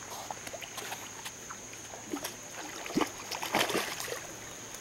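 Scattered light splashes and knocks of a caught fish being held and unhooked at the water's edge. A steady high insect trill sounds behind them.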